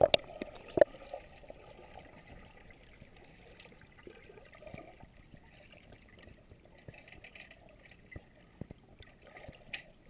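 Faint steady water noise from the training pool, with a few short knocks shortly after the start and again near the end.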